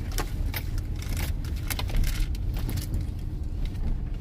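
Car cabin with a steady low engine rumble and scattered sharp light clicks and rattles.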